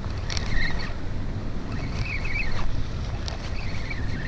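Wind buffeting the microphone in a steady low rumble, with faint wavering high chirps that come and go three times.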